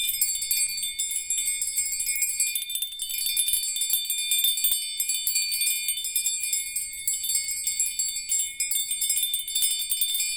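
Small hand bells shaken continuously: a bright, high jingling over a few steady ringing tones, played to open the crown chakra.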